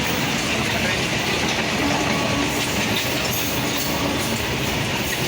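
Passenger train running, heard from aboard a coach: a steady rumble of wheels on the rails with a light rattle.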